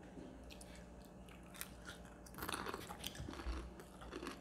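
Crispy fried chicken skin crunching as it is bitten and chewed: a few sharp crackles at first, then a dense run of crunching from about halfway through.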